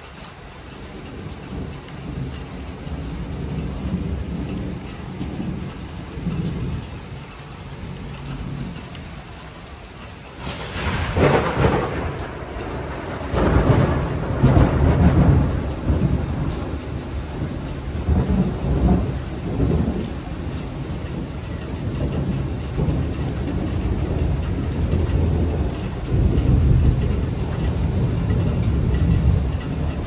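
Summer thunderstorm: steady rain falling, with a sharp crack of thunder about a third of the way in, followed by deep rolling rumbles of thunder that swell and fade again and again.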